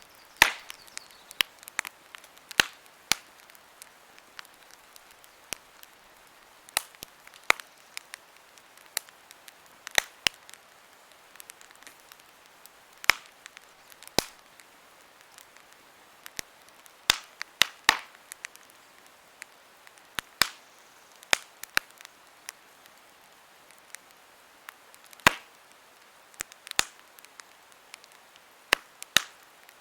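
Wood campfire crackling: irregular sharp pops and snaps, roughly one every second or two, over a faint hiss of the burning fire.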